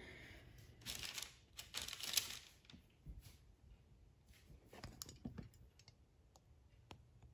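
Hands rolling small balls of soft cookie dough and setting them down on parchment paper on a baking tray: a few brief, faint rustles and soft little taps.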